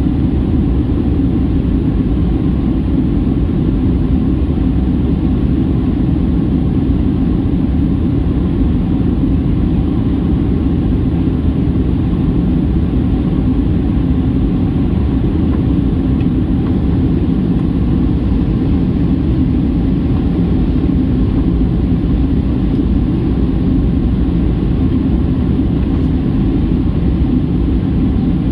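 Steady, unchanging cabin drone of a Boeing 737-800 in descent: its CFM56-7B engines and the air rushing past the fuselage make a low rumble.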